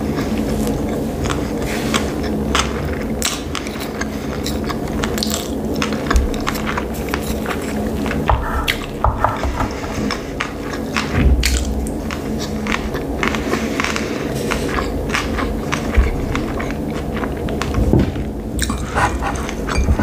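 Close-miked chewing of sushi rolls: soft wet mouth sounds with many small clicks and crunches.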